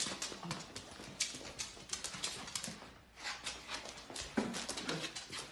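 Staffordshire bull terrier's claws clicking and scrabbling on a hard floor as it plays tug with a rope toy: quick, irregular taps and scuffs, with a short lull about three seconds in.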